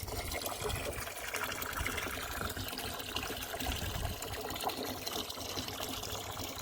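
Water running steadily from a hose pipeline into a livestock water tank.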